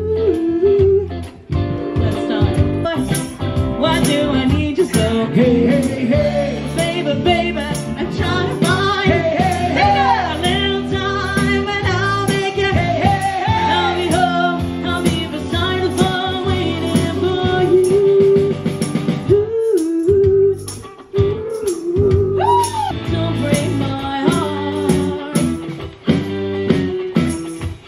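Live band playing a Motown song: electric guitar, bass and drums with a steady beat, and a lead voice singing the melody. The music drops out for a moment about twenty seconds in.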